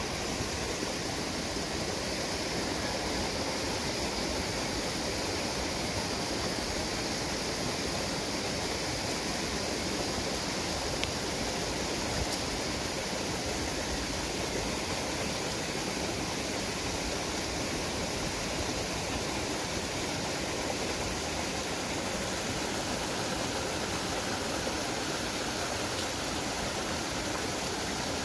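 Steady rushing of a small waterfall and stream water, unbroken throughout.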